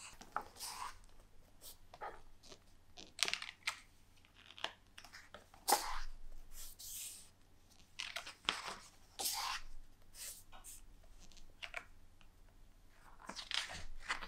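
Pages of a large hardback photo book being turned one after another: several papery swishes and rustles, with small clicks of fingers handling the pages between them.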